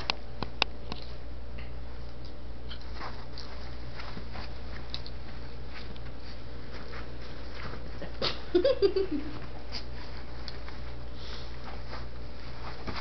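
Small dogs playing, with soft scuffles and clicks over a steady low hum; about eight seconds in, one dog gives a short run of high-pitched vocal sounds lasting under a second.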